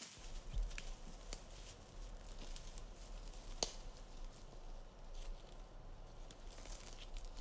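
Footsteps moving through forest undergrowth and leaf litter: irregular rustling and light snapping, with one sharper snap about three and a half seconds in.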